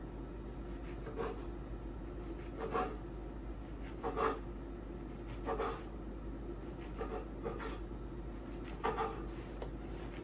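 Knife sawing through a crusty baguette, slice after slice: short cutting strokes about every one and a half seconds.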